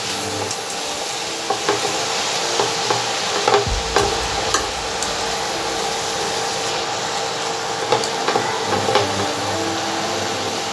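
Chopped spinach sizzling in hot oil in a stainless-steel kadai while a steel spoon stirs and turns it, the spoon clinking and scraping against the pan now and then.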